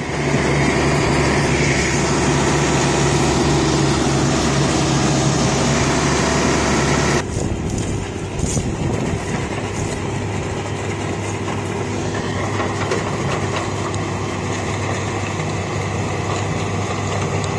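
Diesel engine of a Fiat-Allis SL11 tracked excavator running steadily at working revs while the boom and bucket move. The sound changes abruptly about seven seconds in, becoming duller and a little quieter.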